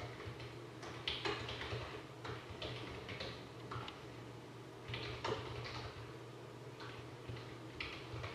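Faint, scattered light clicks and taps of a computer mouse and keyboard, over a steady low electrical hum.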